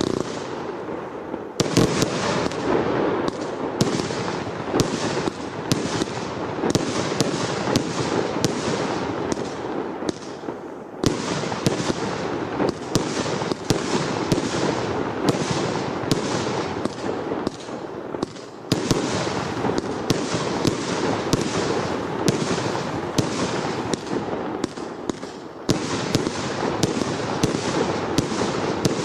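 Brothers Pyrotechnics RS3 firework going off: a continuous, dense stream of bangs and crackling. The pattern shifts with short lulls several times, about 2, 11, 19 and 26 seconds in.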